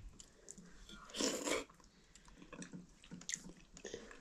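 Wet eating sounds from a meal of maize dhido and chicken curry: a short wet burst about a second in, then soft chewing and lip-smacking clicks.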